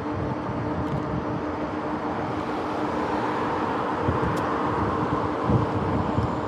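Wind buffeting the microphone and tyre noise from an electric mountain bike riding at speed, with a steady hum underneath. A car passes close by about halfway through, swelling the noise and then fading.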